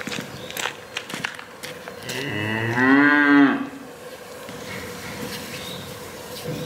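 A cow mooing once, about two seconds in: a single call of about a second and a half that rises and then falls in pitch.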